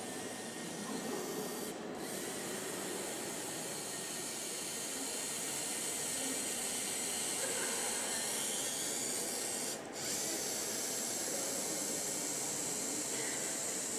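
Steady background hiss with no distinct event, dropping out briefly twice.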